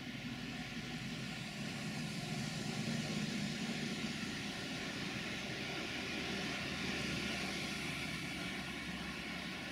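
Diesel engines of LDE2100 (060-DA) diesel-electric locomotives hauling a heavy loaded freight train away into the distance: a steady low drone with a broad rushing hiss.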